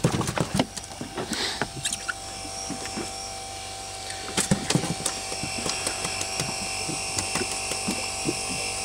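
Electric fishing reel's motor winding in line with a steady whine, starting about one and a half seconds in after a few knocks and clicks of handling.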